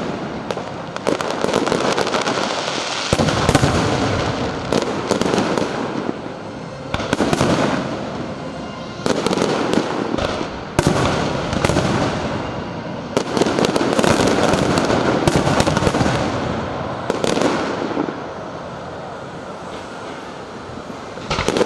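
Aerial fireworks display: loud bangs and dense crackling in waves every two to three seconds, easing for a few seconds near the end before another burst.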